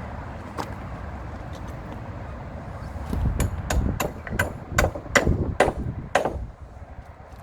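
Hammer striking about nine times in quick succession, about three blows a second, starting about three seconds in and stopping a little after six seconds.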